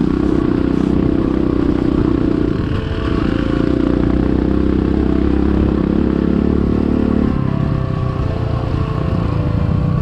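Enduro motorcycle engine running as the bike is ridden, its note easing briefly about three seconds in and dropping about seven seconds in.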